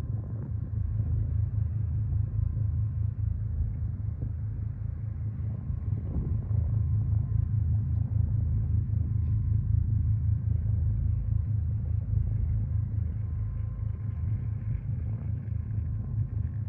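Ferry engines running with a steady low rumble, a faint steady whine above it.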